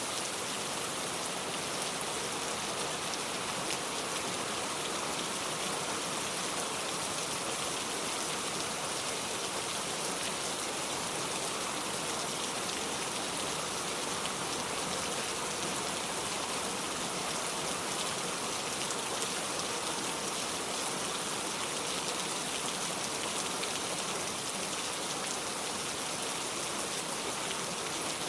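Steady rain, an even dense patter with no let-up.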